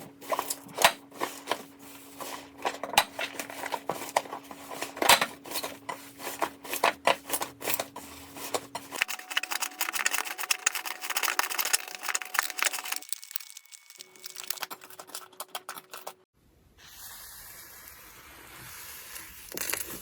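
Slime being pressed and worked by hand: a dense run of sticky crackles, pops and clicks. About 16 s in it cuts to a softer, steady rustling hiss from another slime clip.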